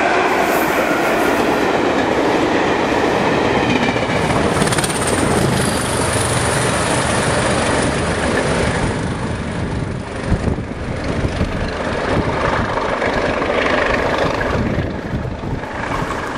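Electric locomotive 'Sarah Siddons' hauling coaches past at speed, wheels clattering on the rails with a brief high wheel squeal. Partway through, the sound of a diesel-hauled train approaching takes over.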